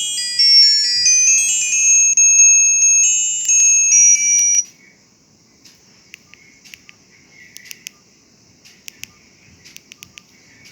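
Olmio Pet A02 mobile phone ringtone: a loud, high-pitched melody of rapid short notes that cuts off suddenly about four and a half seconds in, leaving faint hiss with scattered small clicks.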